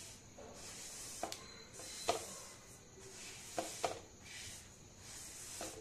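White sesame seeds dry-roasting in a metal kadhai, stirred with a silicone spatula: a faint gritty rustle that comes in waves with each stroke, with several sharp clicks.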